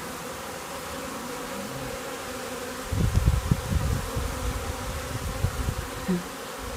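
A colony of honeybees buzzing steadily around a hive entrance and sugar-water feeder. About three seconds in, uneven low rumbling buffets come in over the hum and are louder than it.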